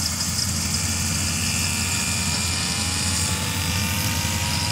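Rice combine harvester's engine running steadily as it works the paddy, a low drone with a faint whine that rises slowly in pitch over the second half.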